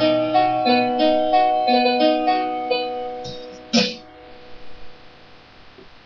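Electronic keyboard playing a sonata on a piano voice: a quick run of single notes over held lower notes, which stops about three seconds in and rings out. A short sharp knock follows just before four seconds, then only faint background hum.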